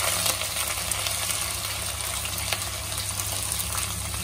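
Sliced onions sizzling as they drop into hot oil in a pan: a steady frying hiss with a few faint crackles.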